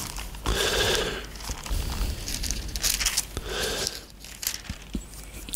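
Paper rustling in two bursts as the pages of a Bible are leafed through to find a passage.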